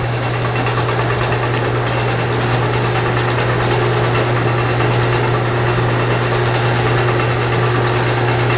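Four-head cheese depositor running while it cycles: a loud, steady machine hum with a low drone and a higher steady tone over a constant mechanical whir.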